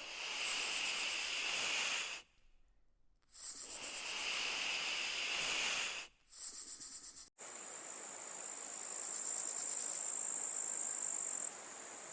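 Insects chirring in a steady, high-pitched buzz with a fast pulse. It comes as several separate stretches with short silent breaks between them.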